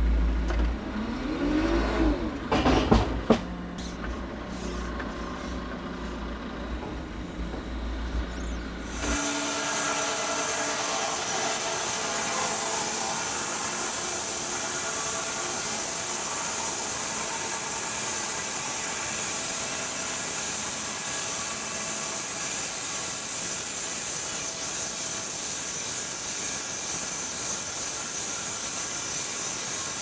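For the first nine seconds, a telehandler's engine runs with a low rumble, with a few metal clanks about three seconds in. It then changes abruptly to a wide-cut bandsaw mill sawing a walnut log: the blade cutting and sawdust spraying make a steady, even hiss over the mill's electric motor.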